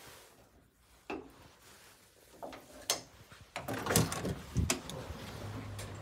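A front door being unlocked and opened: the door guard bar and lever-handle latch clack, then a quick run of sharp metallic knocks and clunks, loudest about four seconds in, as the door swings open. A steady low hum starts near the end.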